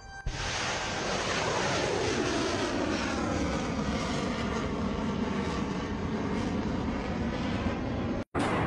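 Tomahawk cruise missile launching from a warship's deck: the rocket booster's roar starts suddenly and holds steady, with a slow whooshing sweep in its tone as the missile climbs away. It breaks off abruptly near the end and a louder launch roar starts.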